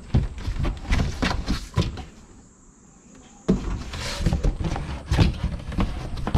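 Cardboard box being handled with a bicycle inside: knocks and rustling as parts settle in the box, a short lull about two seconds in, then cardboard flaps scraping and being pressed shut from about three and a half seconds.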